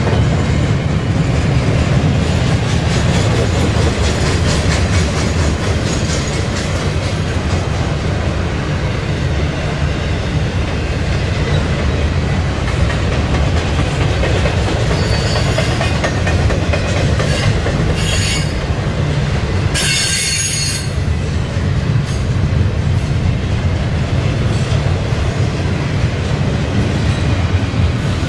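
Double-stack intermodal well cars rolling past, with a steady heavy rumble of steel wheels on rail and clicks over the rail joints. Brief high-pitched wheel squeals come about 18 seconds in and again about two seconds later.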